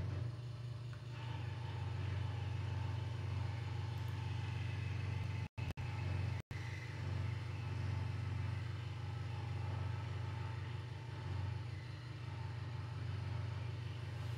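Hegner Multicut 2S scroll saw running steadily, its blade cutting a wooden spoon blank, with a constant low hum. The sound cuts out twice briefly just past the middle.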